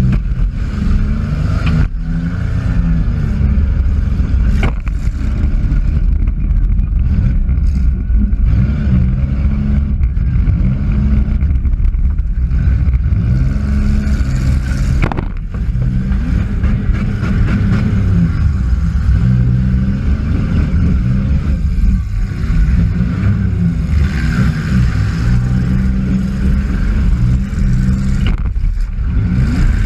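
Demolition derby car's engine revving up and down over and over, heard from inside the car, with a few sharp bangs of collisions, the clearest one about halfway through.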